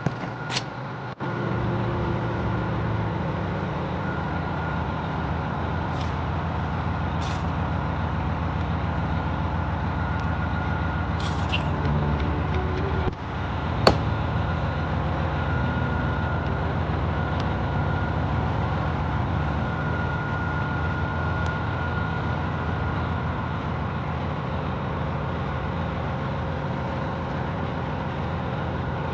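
A motor starts about a second in and keeps running steadily as a low rumble with a faint steady whine over it. A few short hisses and one sharp click are heard over it.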